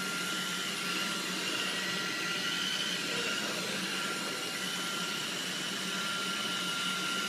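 Steady hiss and hum with a faint, high, unchanging whine; no distinct events.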